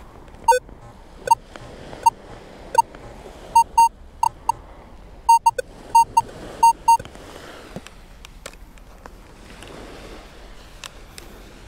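Minelab Vanquish 540 metal detector giving a string of short, sharp target beeps, about fifteen of them, some in quick pairs, as the coil is swept back and forth over a target. The beeps stop about seven seconds in.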